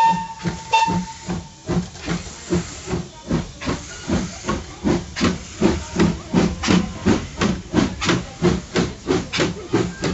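Steam locomotive whistle sounding one steady note that stops about a second and a half in. It is followed by the locomotive's exhaust chuffing as it pulls away, the beats quickening to about four a second.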